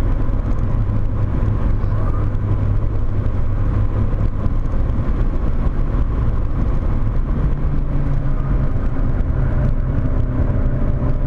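Volkswagen Corrado 1.8 16V's four-cylinder engine running hard at speed, heard from inside the car; its note steps up in pitch about two-thirds of the way through.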